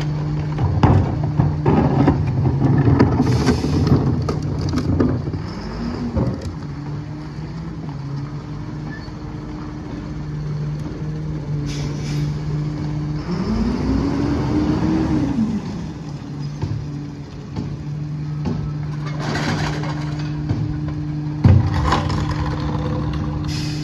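Freightliner M2 garbage truck's diesel engine idling steadily behind a New Way Viper rear-loader body. Over the first few seconds, recyclables from a plastic bin clatter into the hopper. About halfway through, the engine revs up and settles back, and near the end a hollow plastic bin knocks down on the pavement.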